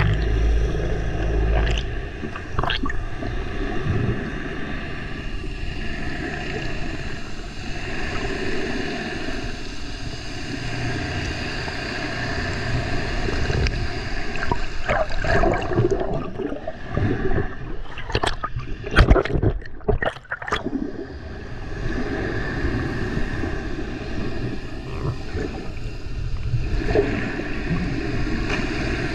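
Muffled underwater sound of water churning and bubbling around a swimmer, with a faint steady hum running through it. A cluster of sharp knocks and splashes comes a little past the middle.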